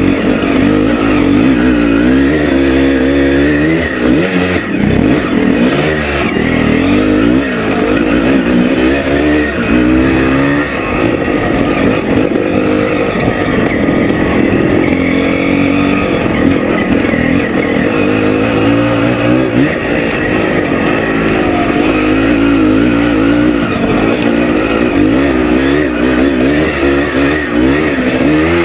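Onboard sound of a vintage Can-Am 370 two-stroke single-cylinder enduro motorcycle under way on a dirt trail. The engine revs rise and fall over and over as the rider works the throttle, with a few brief dips in level.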